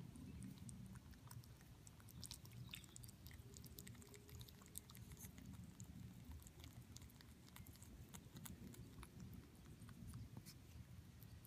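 Pet rabbit chewing a strawberry: a fast, uneven run of faint clicks and crunches from its teeth over a low steady hum.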